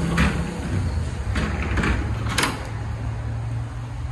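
Wooden door of a restored 1930s Sydney R-class tram worked by its brass handle: four clicks and knocks of the latch and door, the sharpest about two and a half seconds in.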